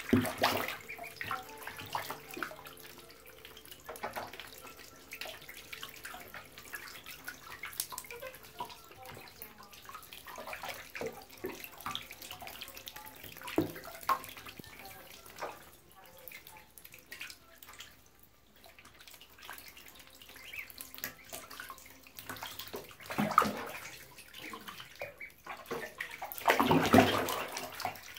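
Water splashing and sloshing in a shallow bathtub as a group of week-old ducklings paddle and dabble in it, with many small irregular splashes and two louder stretches of splashing near the end.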